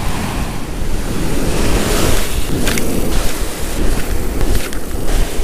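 Ocean surf washing up the beach and foaming around the feet, with wind buffeting the microphone as a low rumble.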